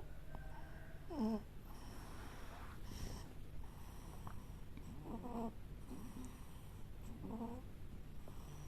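Two-month-old baby making three short, wavering whimpers about a second in, about five seconds in and near the end, over a steady low hum.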